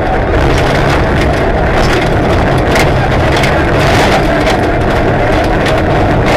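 Rally car at full pace on a gravel stage, heard from inside the cabin: the engine runs hard under load, and gravel and stones strike the underbody in scattered sharp clicks.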